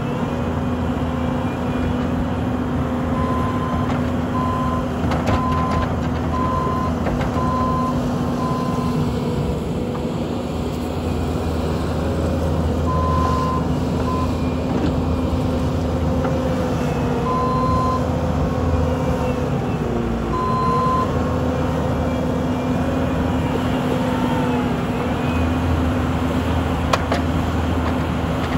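Bobcat T770 compact track loader's diesel engine running steadily, its pitch dipping briefly now and then, while its backup alarm beeps in short bursts about once a second as the machine reverses.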